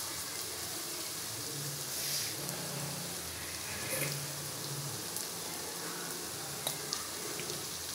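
Sliced shallots frying in oil in a stainless steel pan: a steady sizzle, with a few faint clicks.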